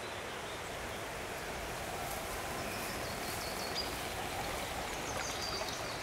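Small woodland stream running over stones, a steady babbling wash of water, with a few faint high bird chirps in the second half.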